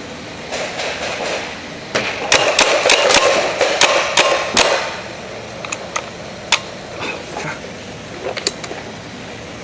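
Paintball markers firing reballs: a quick run of sharp shots between about two and five seconds in, then a few single shots spread out after.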